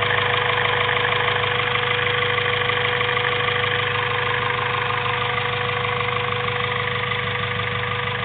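Rebuilt turbocharged Honda B16A2 DOHC four-cylinder engine idling steadily, with a constant whining tone over the engine note. This is the strange noise the owner is asking about in the fresh build.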